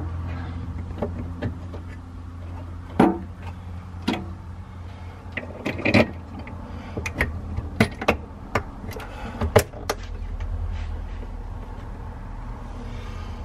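Irregular sharp clicks and clinks of a heavy battery cable and its lug being handled and fitted at the terminals of a battery on-off switch, over a steady low hum.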